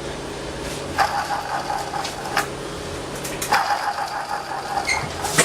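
A motor running steadily with a low hum, growing louder and rougher about a second in and again about three and a half seconds in, with a sharp click near the end.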